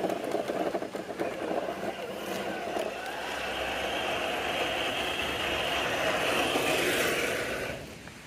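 Electric motor and geared drivetrain of a scale RC crawler truck whining as it drives over dirt, getting louder from about three seconds in and dropping away suddenly near the end.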